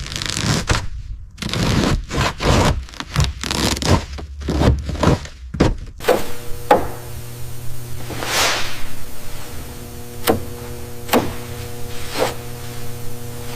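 Hand work on metal or bodywork: a quick run of scraping and rubbing strokes, then, over a steady machine hum, about five sharp knocks spaced a second or so apart and one longer scraping sweep.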